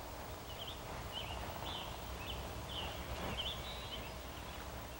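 A bird chirping, a quick series of short high notes, over a steady low background hum.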